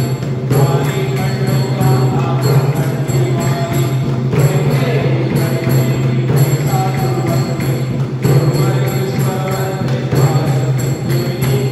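Temple aarti: bells ringing over devotional music with singing.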